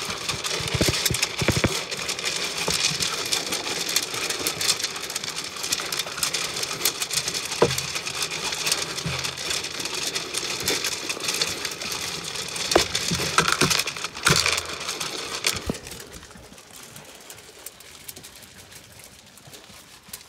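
A Zwartbles sheep munching on the phone, its mouth working right against the microphone: close crackling and scraping with many sharp clicks, which drops to a quieter rustle about 16 seconds in.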